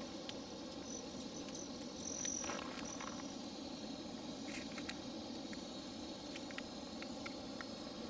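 Backpacking canister stove burning steadily under a frying pan, a low, even hiss. A few faint high chirps come in about a second in, and there are scattered light clicks.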